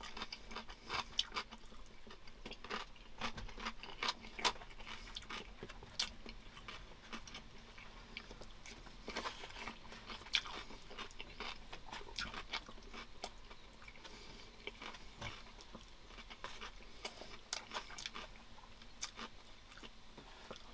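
A person chewing and biting into a meal of pork chop and macaroni salad with cucumber close to the microphone, with irregular small clicks and crunches.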